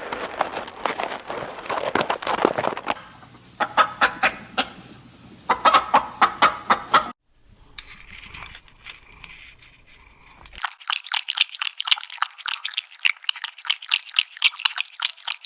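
Animal calls in a run of short spliced clips: a dense crackling stretch, then a string of short pitched calls, a quieter stretch, and from about two-thirds in, a fast run of clicking calls. The short calls fit hens clucking.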